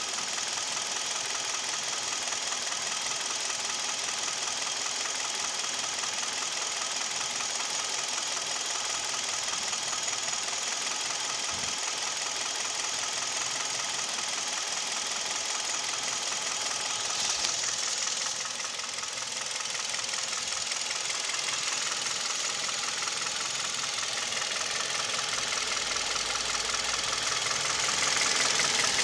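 Hyundai/Kia G4KD 2.0-litre Theta II four-cylinder engine running with a steady knock, which the owner takes for piston knock. It gets a little louder near the end.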